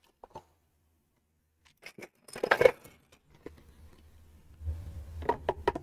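Plastic Lego pieces clicking and clattering as they are handled, with the busiest clatter about halfway through and a few more clicks near the end.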